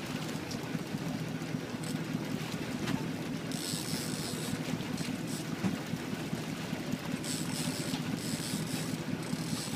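Boat engine running steadily with a low hum, with wind and water noise on the microphone. Two spells of higher hiss come midway and near the end.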